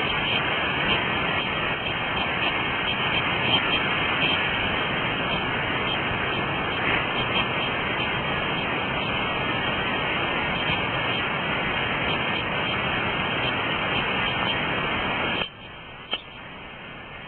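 Steady rush of flowing river water. Near the end it drops away abruptly to a quieter hiss, with a single click.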